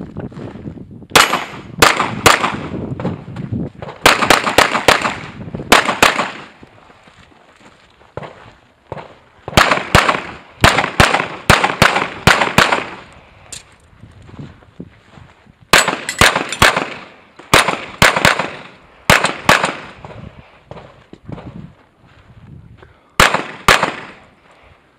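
A competition pistol fired in quick strings of several shots during a USPSA/IPSC stage run. The first string starts about a second in, more follow with short pauses between them, and a final pair comes near the end.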